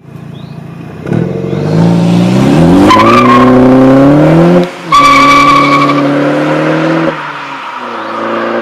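A car engine accelerating hard, its pitch rising steadily, cutting out briefly about four and a half seconds in as if shifting gear, then running at high revs before easing off near the end.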